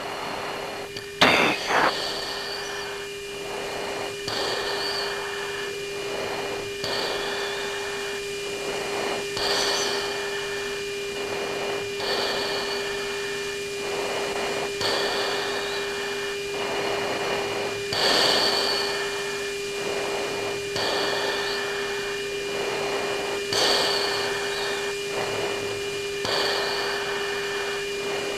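Cockpit intercom audio on a US Air Force jet's flight tape: a steady electrical hum and a thin high whine under hiss, with soft rushes of noise about every second and a half. A sharp click comes about a second in.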